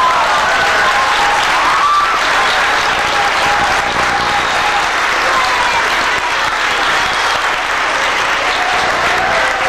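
Audience applauding steadily, with a few high voices calling out over the clapping.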